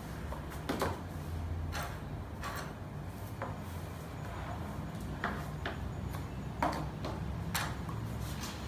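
Light handling sounds at a wooden worktable: short scrapes and knocks, scattered unevenly, as a brush is worked over a ceramic pot and a plastic bottle scoop and a squeeze-bulb blower are picked up and set down. Under them runs a steady low hum.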